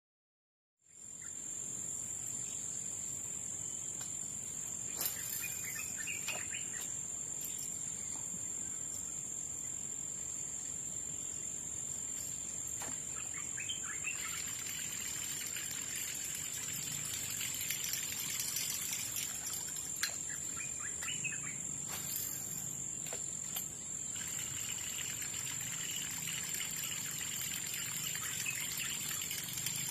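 Riverside ambience: a steady high-pitched insect drone, with birds chirping now and then and a few faint clicks.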